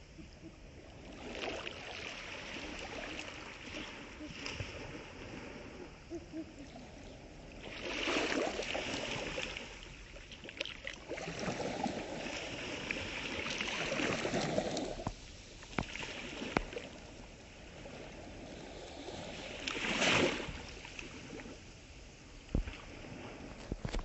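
Small waves lapping and washing up onto a sandy shore, with a few louder washes of surf about a third of the way in, through the middle and near the end.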